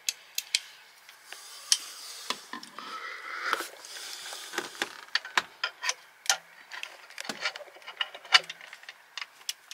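Hand tools clicking and clinking on metal, irregular sharp clicks with some scraping, as the bolts holding the alternator on a boat's generator are worked loose with a wrench.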